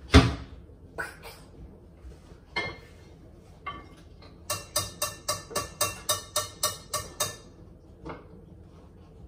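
Cooking pans and utensils clattering on a stove: a loud knock just after the start, a few scattered clinks, then a quick, even run of about a dozen sharp metallic clicks, about four a second, lasting nearly three seconds.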